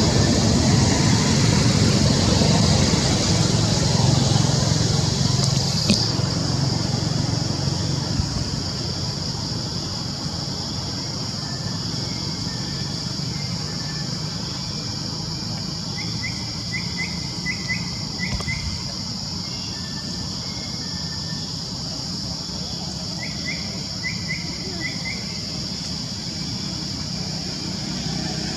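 Outdoor ambience with a steady high hiss. A low vehicle rumble fades away over the first several seconds, and birds give two short runs of quick rising chirps in the second half.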